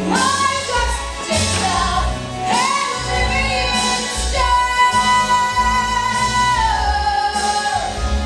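A young female voice singing a show tune over instrumental accompaniment, holding one long note through the second half that drops in pitch near the end.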